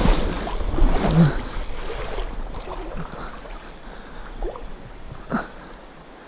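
Stream water splashing close by with wind buffeting the microphone, loud at first and dying away over the first few seconds. Two short knocks come near the end.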